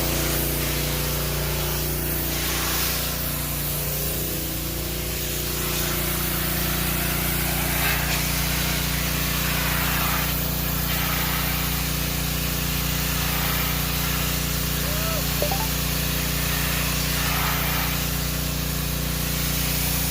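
Pressure washer running with a steady motor hum, its water jet hissing against the chair and swelling louder several times as the spray is moved across it.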